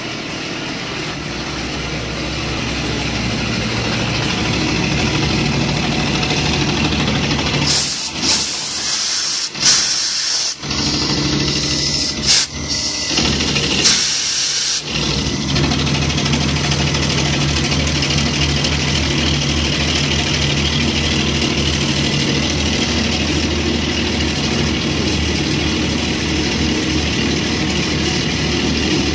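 Shop Master Patriot CNC mill cutting a metal block: a steady spindle and cutting hum with a hiss over it. For several seconds about a third of the way in, a loud hiss starts and stops several times.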